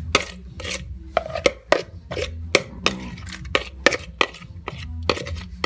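Irregular knocks and clatter, a few a second, as marinated chicken pieces are moved from a bowl onto aluminium foil.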